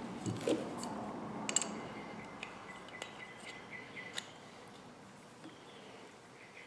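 Scattered light metallic clicks and clinks of an adjustable wrench and a brass quick-disconnect fitting being handled and fitted together by hand.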